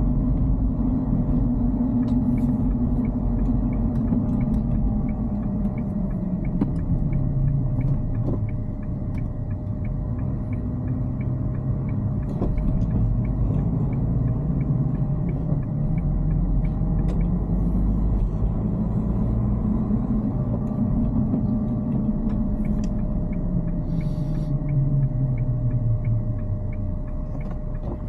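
Dacia Duster's engine and tyre rumble inside the cabin while driving. The engine note drops early on, then climbs and falls again as the revs change.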